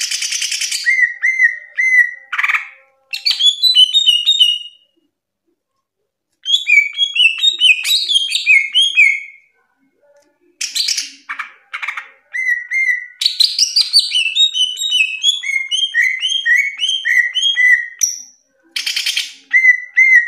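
Green leafbird (cucak ijo) singing loudly in bursts: fast runs of varied whistled notes, mixed with short harsh rasping notes, with brief pauses between phrases.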